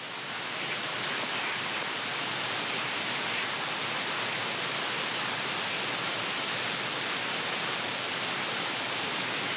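Steady hiss of radio static from a shortwave receiver tuned to an idle frequency, with no signal on it.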